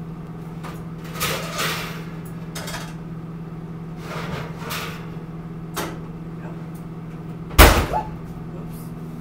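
Kitchen handling noises: a few short knocks and clatters of doors and cookware over a steady low hum, then one sharp loud bang near the end, as of a cupboard or oven door banged shut.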